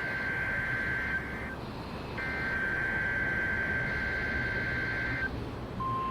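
NOAA Weather Radio SAME header over a steady hiss of radio static: two long bursts of paired digital data tones around 1.5–2 kHz, separated by a short gap. Near the end a single steady 1050 Hz warning alarm tone begins, opening the next Required Weekly Test.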